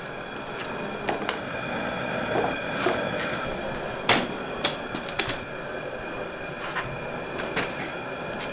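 Scattered light knocks and clicks of a thin cedar plank being handled and pressed against a wooden bending form, the sharpest knock about four seconds in, over a steady background hum with a faint high whine.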